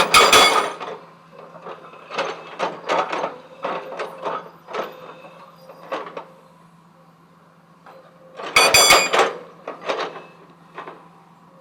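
Heavy machinery clanking and rattling in irregular bursts of sharp knocks over a steady low hum.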